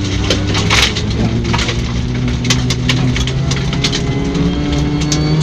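Rally car on a gravel stage: the engine pulls steadily with its pitch slowly rising, while loose gravel crunches and stones crack sharply against the car many times.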